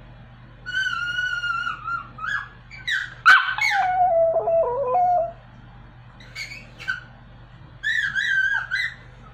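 Pomeranian howling in high, wavering calls, three bouts: a short one about a second in, a longer, louder one from about three seconds in that falls in pitch, and another near the end. A sharp click comes just before the loudest howl.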